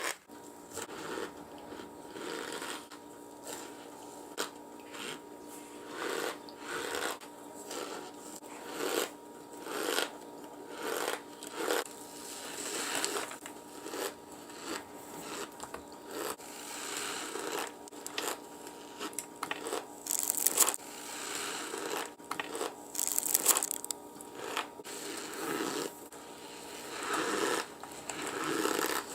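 Cornstarch being bitten and chewed, giving short squeaky crunches about once a second, with two sharper crunches near the end.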